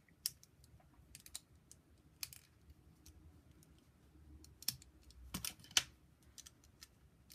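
Small plastic LEGO pieces clicking as they are handled and pressed onto a brick column: a scatter of sharp, irregular clicks, the loudest few a little past the middle.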